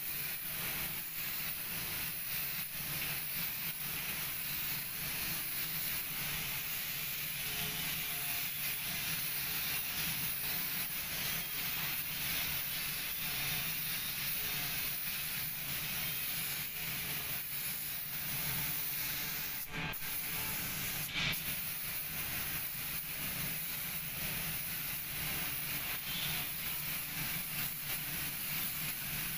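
Compressed-air spray gun with a suction-feed cup hissing steadily while spraying paint, over a steady low hum. The spray hiss cuts out briefly twice, about two-thirds of the way through.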